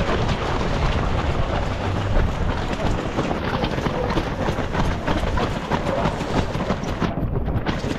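Wind rumbling on the microphone over a dense patter of runners' footsteps on the road, the pack moving off at the start of a race.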